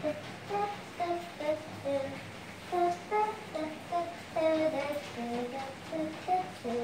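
A young boy singing a Thai khon dance tune, short notes stepping up and down at about two or three a second.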